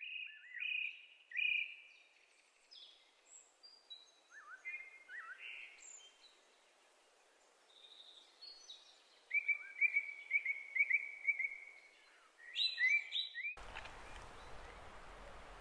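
Small birds chirping and calling, several short whistled notes, with a run of quick repeated notes about halfway through. Near the end the birdsong cuts off and gives way to a steady outdoor background hiss.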